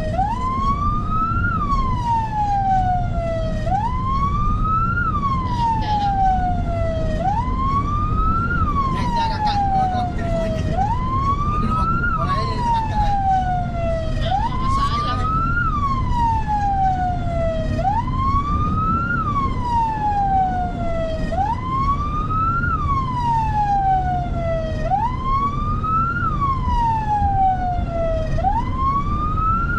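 Emergency vehicle siren on a slow wail. Each cycle rises quickly in pitch and then falls more slowly, repeating about every three and a half seconds, over a steady low rumble.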